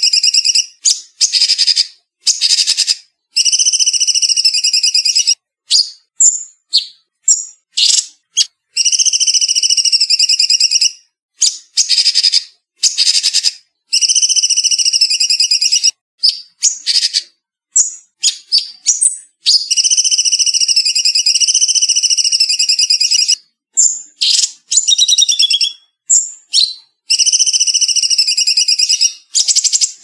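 Cucak cungkok, a bulbul, singing a fast, trilling song: phrases of one to three seconds follow each other with short gaps, broken up by brief single notes, with no background noise.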